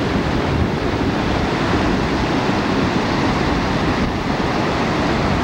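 Ocean surf breaking and washing up the beach, with wind buffeting the microphone: a steady rushing noise.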